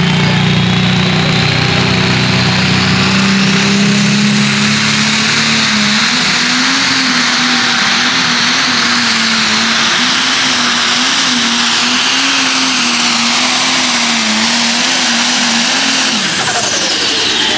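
Light Pro class Ford pulling tractor's engine at full throttle, hauling a weight-transfer sled down the track. A high whine rises over the first several seconds, then the engine note wavers up and down through the pull and falls away near the end as the pull finishes.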